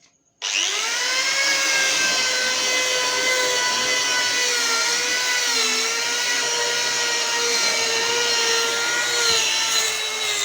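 Electric sanding machine on a wooden speaker cabinet. It switches on about half a second in, spins up with a rising whine, then runs steadily, its pitch sagging slightly now and then as it is pressed into the wood.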